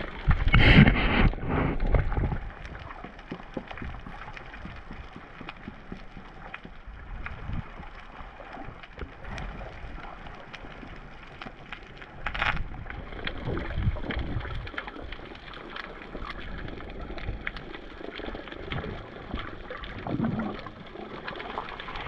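Ambient water noise heard underwater: a dull, even wash with many faint scattered clicks. There is a louder rush of noise about a second in and a short sharp burst near the middle.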